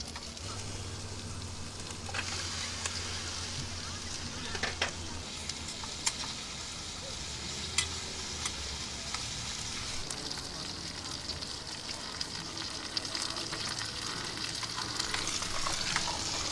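Food sizzling in a hot pan: a steady hiss with a few sharp pops of spattering fat.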